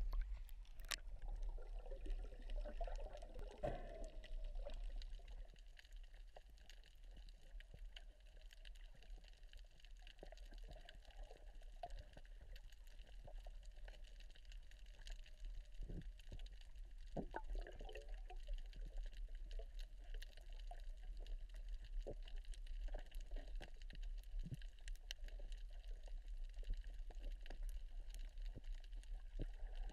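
Water heard by a camera under the surface: muffled sloshing and gurgling, with bubbling at the start and again about halfway through. Scattered faint clicks and a steady low hum run underneath.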